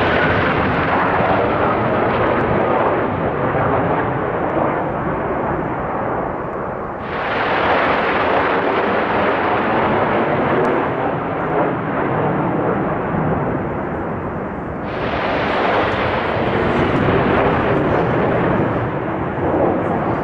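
Military fighter jets flying low overhead in formation: a loud, steady rushing roar of jet engines, which starts fresh abruptly about seven and again about fifteen seconds in.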